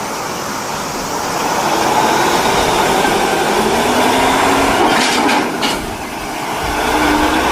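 Loud, steady rushing hiss of a water spray washing a dirty plastic toy, with a few light knocks about five seconds in.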